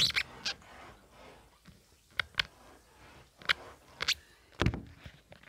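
Hands splashing and swishing in bath water, with several short, sharp splashes and knocks spread over the few seconds, some from the phone being handled close to the water.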